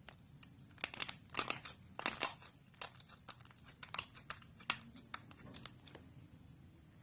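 Slime being pressed and squeezed by hand, giving an irregular run of sharp crackles and pops, loudest a second or two in.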